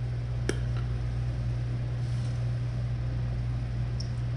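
Steady low hum, with a single sharp click about half a second in and a faint tick near the end.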